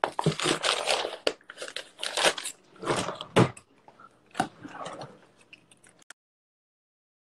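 Irregular crunching and rustling noises, like a phone being handled and rubbed as it is carried around, coming in short uneven bursts. The sound cuts out completely about six seconds in.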